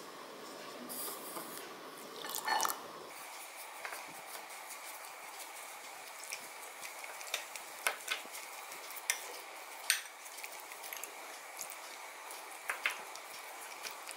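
Fingers mixing semolina and buttermilk into a batter in a glass bowl: faint wet squishing, with a few light clicks against the glass.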